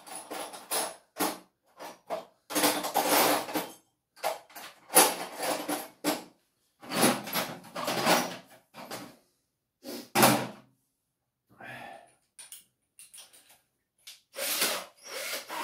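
Irregular handling noises: a dozen or so short scrapes, rustles and clatters of objects being moved about, separated by brief pauses.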